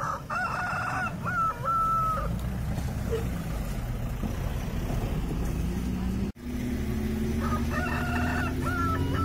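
A rooster crows twice, each crow ending on a long held note, over a steady low hum.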